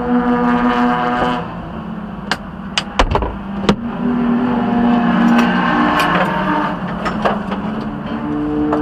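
Vehicle engines running with a steady hum that shifts pitch a few times, with a handful of sharp clicks about two to four seconds in.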